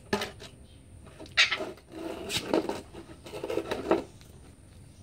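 A pet parrot giving a few short squawks, the loudest about a second and a half in.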